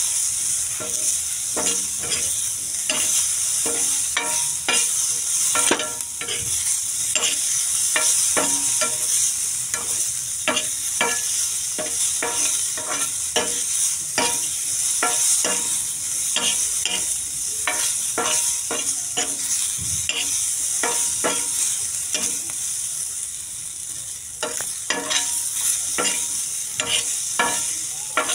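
Diced vegetables sizzling in oil in a pan, with a steady frying hiss, while a spoon stirs them and scrapes and knocks against the pan many times.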